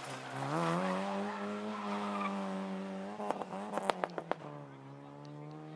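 Nissan Micra rally car's engine revving hard out of a corner, its pitch rising over the first second and then holding steady as the car pulls away. About three seconds in comes a quick cluster of sharp cracks, after which the engine note settles lower.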